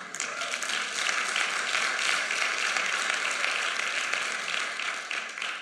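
Church congregation applauding: steady clapping that starts at once and fades out near the end.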